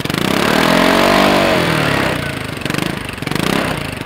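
Vespa GTS single-cylinder four-stroke engine running through an SIP Pordoi racing exhaust, revved at standstill with the rear wheel spinning. The revs rise and fall once over about two seconds, then come a shorter blip near the end.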